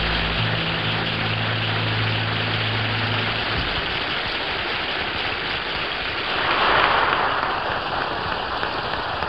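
Studio audience applauding steadily, with the orchestra's final held chord sounding underneath and ending about three and a half seconds in. The applause swells briefly about two-thirds of the way through.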